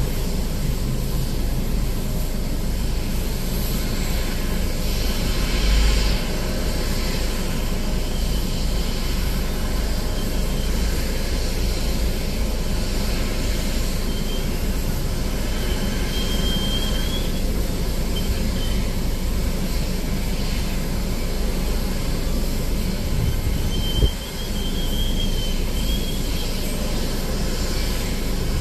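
Steady low rumble of airport ramp noise from aircraft and ground-vehicle engines, heard through a vehicle's windshield. There is a short thump about 24 seconds in and a faint high squeal twice.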